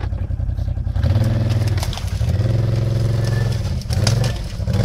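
ATV (quad bike) engine revving in three surges of throttle under heavy load as it climbs a steep muddy bank, with scattered knocks and cracks.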